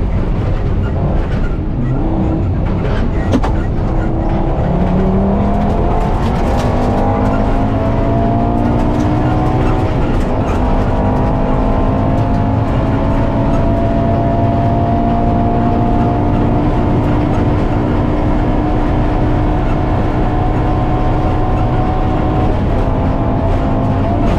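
Rally car engine heard from inside the cabin, pulling hard through the gears: its note climbs, breaks with an upshift about ten seconds in, climbs slowly again and shifts once more near the end. Steady road and tyre rumble runs underneath, with a few sharp clicks of stones hitting the car early on.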